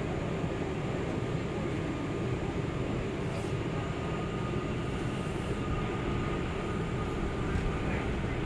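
Inside an R179 subway car as the train pulls out of a station: a steady rumble of wheels and running gear, with a faint high tone above it.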